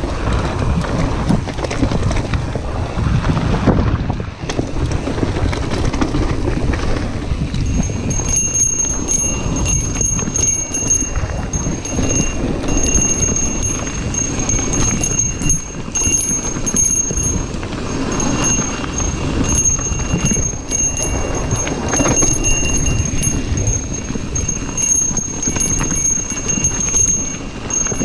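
Santa Cruz Heckler mountain bike descending a rough dirt and gravel trail at speed: tyres rolling over stones and the bike rattling and clattering over the bumps. A thin high whine comes and goes from about eight seconds in.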